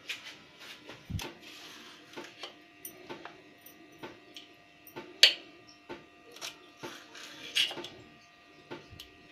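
Irregular light taps and clicks on a stainless steel plate as green chillies and fingers are set down on it, with two sharper clinks about five and seven and a half seconds in. A faint steady hum runs underneath.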